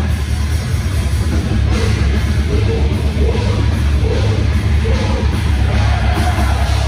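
Death metal band playing live: distorted guitars and drums at full volume, dense and bass-heavy.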